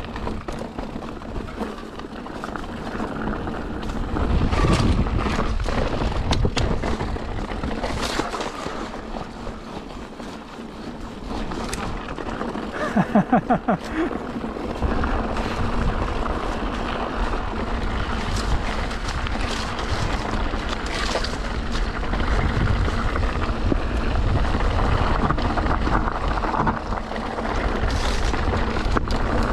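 Wind rushing over the microphone and the rattle of a mountain bike on a rocky trail descent, with tyres knocking over stones throughout. A brief pulsing tone sounds about halfway through.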